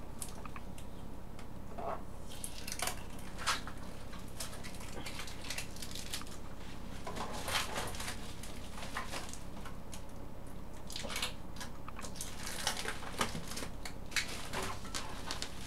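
Scattered scrapes, clicks and rustles of hands working at the packing around a 3D printer during unboxing, over a low steady hum.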